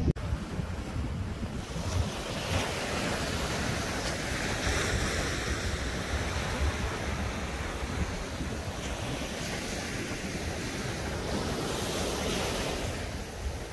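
Sea surf washing over a rocky shore, the rush of water swelling and easing every few seconds, with wind buffeting the microphone as a low rumble.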